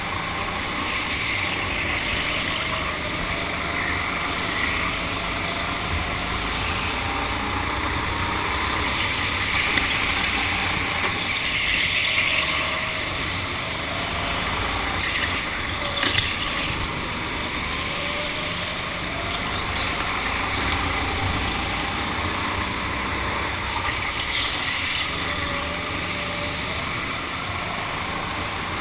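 Go-kart running at speed, its motor note gliding up and down with the throttle over a steady rushing noise. One sharp knock about halfway through.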